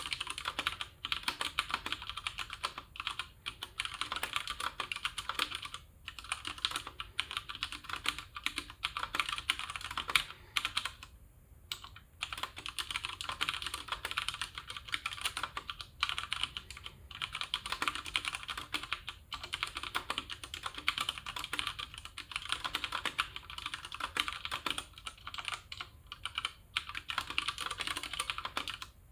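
Ducky One 2 TKL mechanical keyboard with stock Cherry MX Brown switches being typed on steadily, a fast stream of keystroke clicks, with a short pause about eleven seconds in.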